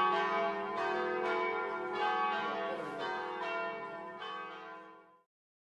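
Bells ringing: overlapping, sustained pitched tones with a new strike roughly every second, dying away and cutting off abruptly about five seconds in.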